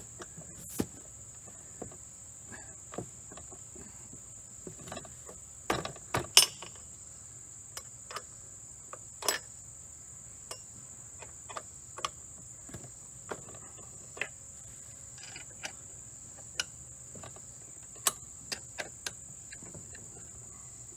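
Steady high-pitched insect chirring, with scattered light clicks and knocks from hands and tools on the derrick's metal frame; the loudest knocks come about six seconds in and again near nine seconds.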